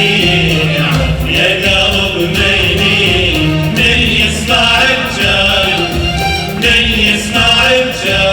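Live music: singing over instrumental accompaniment, with held sung notes and a steady beat.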